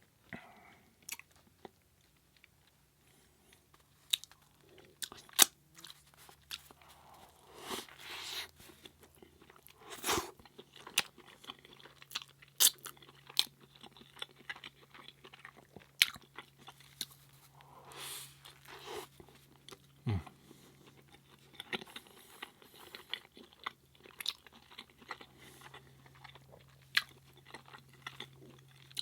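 Close-miked chewing of a Beyond Meat burger patty with spaghetti sauce and cheese: wet mouth sounds with many scattered sharp smacks and clicks.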